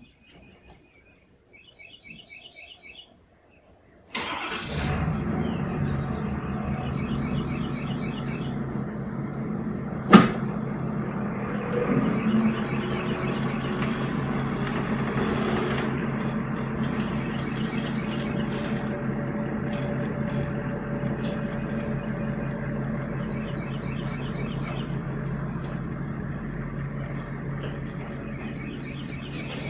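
A pickup truck's engine starts about four seconds in and runs steadily, with one sharp knock about ten seconds in; later the truck pulls forward towing a loaded trailer. Birds chirp briefly before the engine starts.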